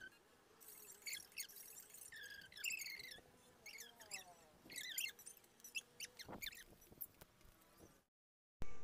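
Pet rose-ringed parakeet chattering in quick, high, squeaky chirps, each a short call that slides in pitch, several a second. The sound cuts out about eight seconds in, and a sudden loud sound starts just before the end.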